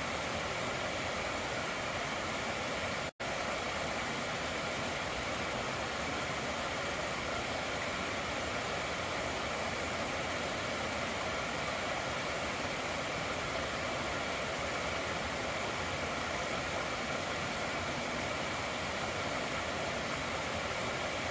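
Stream water running over rocks in a steady, even rush, with a split-second dropout to silence about three seconds in.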